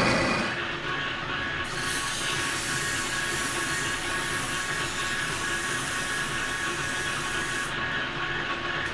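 Metal lathe running steadily with a spray-welded motor shaft turning in it, its drive giving a constant hum with a few steady tones. From about a second and a half in to near the end, an abrasive strip held against the spinning bearing journal adds a hiss as the journal is polished down to its final size.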